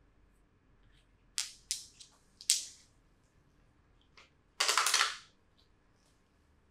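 Percussive massage strokes: hands slapping a person's back. Three sharp slaps come in the first half, then a quick flurry of rapid strokes lasting under a second about halfway through.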